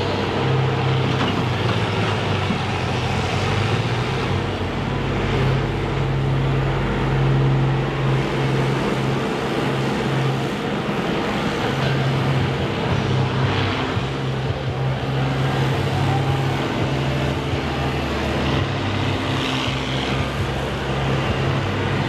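Engines of several combine harvesters running together in a steady low drone, with no clear crashes.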